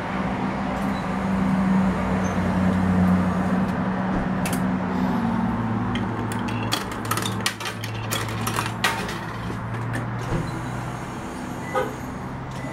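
Coins being fed into a claw machine's coin slot: a run of sharp metallic clicks and clinks about midway, over a steady low hum and background din.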